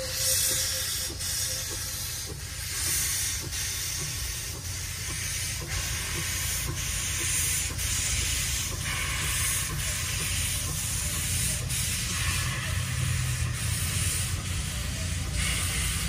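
Narrow-gauge steam locomotive pulling its train away slowly, its exhaust chuffing about once a second over a steady hiss of steam blowing from the front end, with a low rumble of the moving train underneath.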